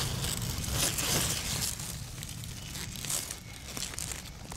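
Myoga leaves rustling and crinkling as they are pushed aside by hand and brush against the camera, loudest about a second in.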